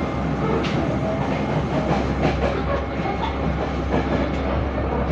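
Passenger train running at speed, heard from inside the carriage: a steady rumble with the wheels clicking irregularly over the rail joints.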